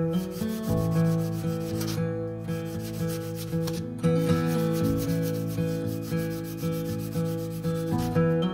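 A strip of sandpaper is worked back and forth around a wooden lure body held in a vise, making a steady scratchy rubbing with a couple of short breaks. Background acoustic guitar music plays underneath.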